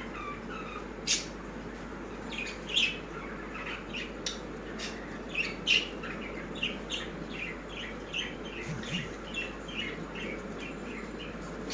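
Pet birds chirping in short, rapid calls, a few sharper and louder, over a steady low background hum.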